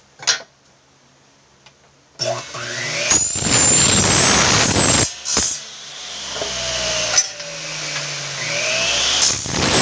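Electric miter saw started about two seconds in, its motor and blade whining up and cutting through a test piece. The sound dips and winds down partway through, then rises again near the end. This is a test cut to check that the blade, just readjusted, now cuts square. A single knock comes shortly after the start as the piece is set down.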